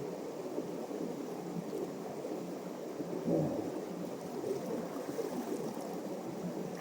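Steady rushing of river water, swelling briefly about three seconds in.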